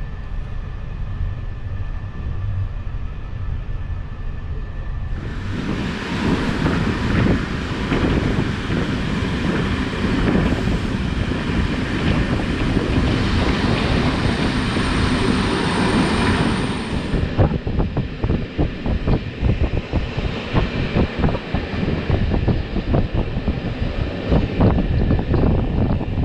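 Sleeper coach running on rails: a steady rolling rumble at first, then from about five seconds in a louder rush of wheel and air noise. From about seventeen seconds in there is irregular clattering and clunking of the wheels over rail joints as the train nears a station.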